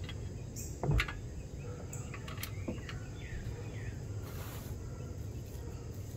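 Outdoor background of faint bird chirps and insects over a low steady rumble. About a second in comes a single loud knock, from hand work on the truck's rear axle hub.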